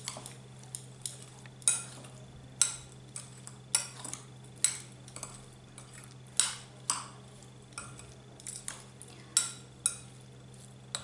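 Steel spoon clinking against a glass mixing bowl while stirring a chopped vegetable mix: irregular sharp clinks, roughly two a second.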